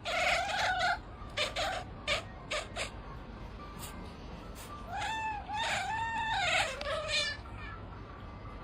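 A cat meowing repeatedly: one long meow at the start, a few short meows, then a run of about four drawn-out, wailing meows about five seconds in, with a few light clicks or taps between them.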